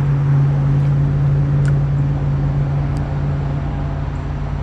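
Steady drone of road traffic with a constant low hum, and a couple of faint ticks.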